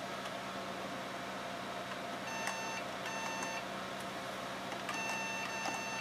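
Computer PC speaker beeping: two short beeps about half a second each, then a longer beep starting about five seconds in, over the steady hum of computer fans, with a few faint key clicks.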